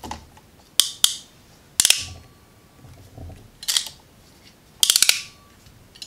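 Hand wire-crimping tool working on electrical wires: five or six sharp metallic clicks and snaps, unevenly spaced, with a faint ring after two of them and light handling rustle.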